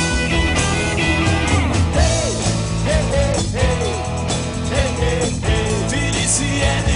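Rock band playing: drums, bass and guitars, with a lead line of short rising-and-falling swooping notes through the middle.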